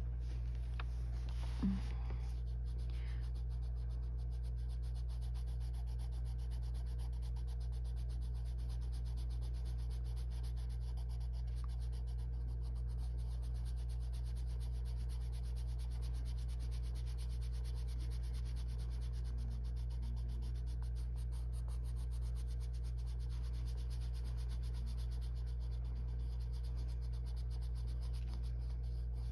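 Arteza coloured pencil shading on paper: soft, steady rubbing of light pencil strokes, over a steady low hum.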